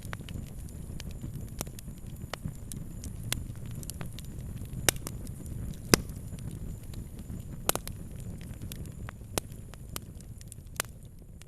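Fire crackling, with irregular sharp pops several times a second over a steady low rumble; the loudest pops come about five and six seconds in, and another just before eight seconds.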